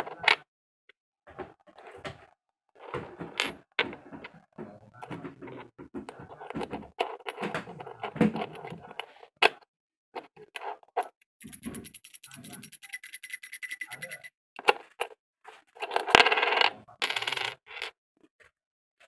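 Small brass cylinders, caps and rings clinking, knocking and sliding on a wooden floor as they are handled. About halfway through there is a fast, even rattle lasting about three seconds, and near the end a louder stretch of rattling.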